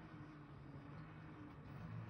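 Model train running on the layout: a faint, steady low hum with a light hiss.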